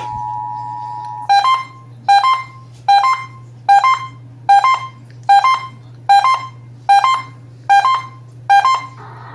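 Emergency Alert System alert tones from a radio broadcast: a steady two-tone attention signal for about a second, then ten short, sharp beeps in an even rhythm, a little under one a second.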